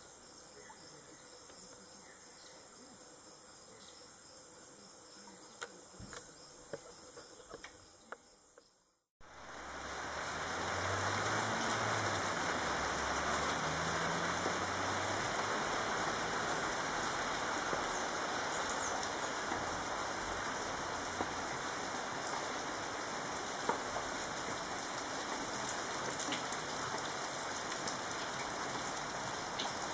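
Steady high chirring of insects at first. After a break about nine seconds in, a louder, even hiss of steady rain falls.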